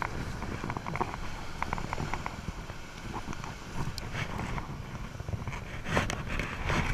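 Wind rumbling on the microphone, with scattered clicks and rustles of hands handling a thrashing small shark and a couple of louder knocks about four and six seconds in.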